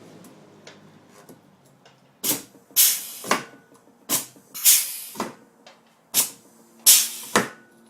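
Pneumatic blind-rivet gun pulling three aluminum rivets, one after another about two seconds apart. Each pull is a quick cluster of three sharp hissing bursts of air.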